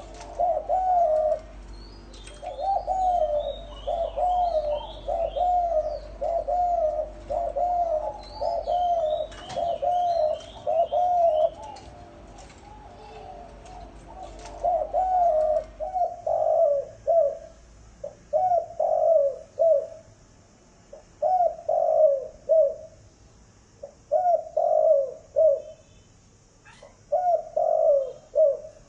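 Spotted doves cooing over and over. For the first dozen seconds the coos come about once a second, with small birds chirping higher up twice. From about halfway on, the coos come in short grouped phrases every couple of seconds over a faint hiss.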